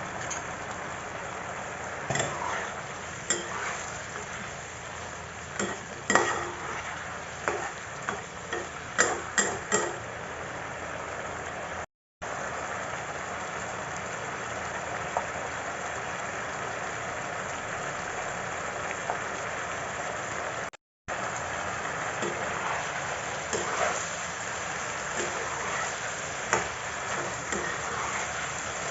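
Chicken, potato and carrot stir-frying in a pan: a steady sizzle, with the spatula clacking and scraping against the pan, busiest in the first third. The sound cuts out briefly twice.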